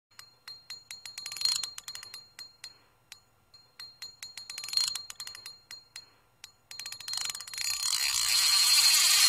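Intro sound effects: a run of rapid metallic clicks with a ringing tone, swelling twice, about a second and a half in and again near five seconds. Then, from about seven seconds, a hiss swells up and becomes the loudest part.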